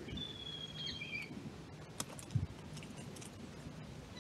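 Pigeons foraging in dry leaf litter, with light scattered pecks and rustles. A thin, high, steady bird call lasts about a second near the start, and a single low thump comes about two and a half seconds in.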